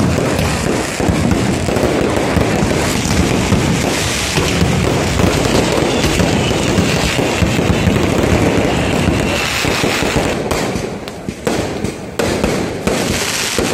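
Aerial fireworks shells bursting in a dense, continuous barrage of rapid cracks and bangs, with a faint falling whistle midway. The barrage thins to separate cracks about ten seconds in.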